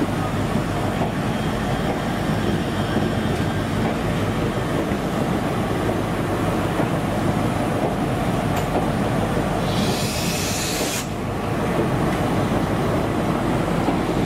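Great Northern electric multiple unit moving along the platform, a steady rumble of wheels and traction motors. About ten seconds in, a loud hiss of air joins it for about a second and cuts off suddenly.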